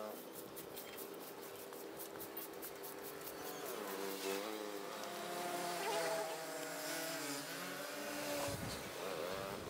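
Small motor buzzing, its pitch shifting up and down several times, with a fast ticking in the first few seconds.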